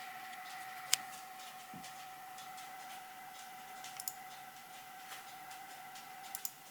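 Amateur radio receiver between transmissions: light static hiss with a steady whistling tone running through it, and a few sharp clicks, at about one second, four seconds and near the end.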